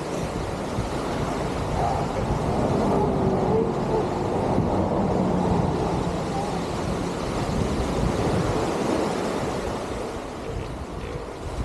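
Steady rumble of ocean surf with wind buffeting the microphone, swelling a little in the middle, with a few faint wavering calls or voices mixed in.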